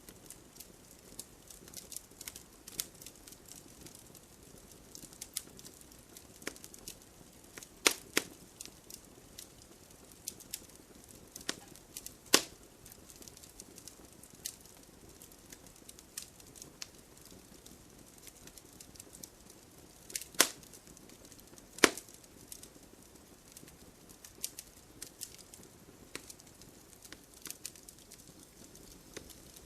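Wood fire crackling in a fireplace: irregular sharp pops and snaps from the burning logs over a faint steady hiss, with four louder snaps standing out among the small ones.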